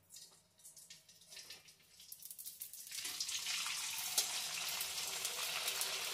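Dried poha papad frying in hot oil in a kadai: faint crackles at first, then a steady sizzle that builds up about two to three seconds in.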